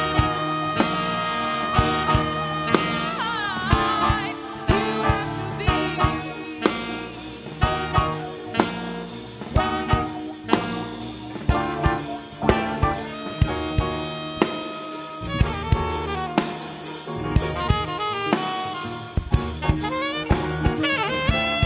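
Live band playing an instrumental passage: a drum kit keeps a steady beat under bass, electric guitar, piano and alto saxophones, with no vocals.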